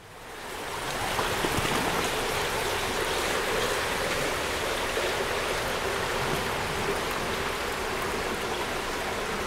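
Steady rush of running water, fading in over the first second and then holding even.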